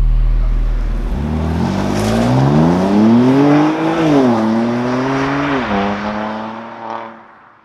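Car engine accelerating hard: the pitch climbs, drops twice at upshifts, then holds and fades away. The low end of a music track dies out in the first second.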